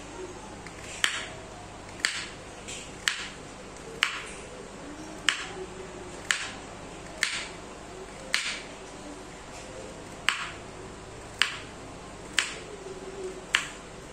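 Kitchen knife chopping vegetables on a cutting board: single sharp knocks at a slow, slightly uneven pace of about one a second.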